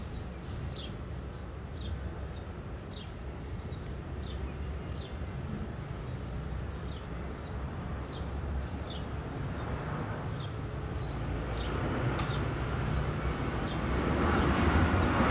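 Birds chirping with many short, high, falling chirps over a steady low rumble. A broad rumbling noise, like a passing vehicle, swells over the last few seconds and becomes the loudest sound.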